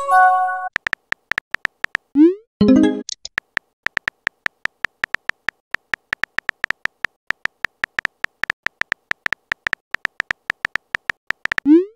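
Rapid key-tap clicks of a texting app's on-screen keyboard, several a second, as a message is typed out. A short chime plays at the start, and about two seconds in comes a rising swoop followed by a brighter pop-like message sound. Another rising swoop comes near the end.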